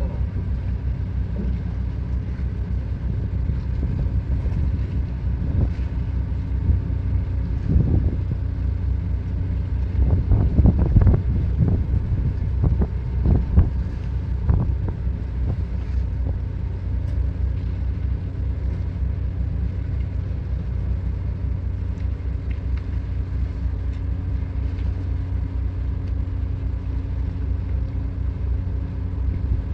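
A ship's engine running steadily with a low, even hum. A few louder irregular noises break in about eight seconds in and again between about ten and fifteen seconds.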